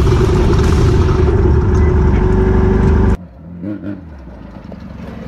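Beetle-bodied off-road race car's engine running loud and steady, heard from on board. About three seconds in it cuts off abruptly to a quieter, steady engine drone heard from outside the car.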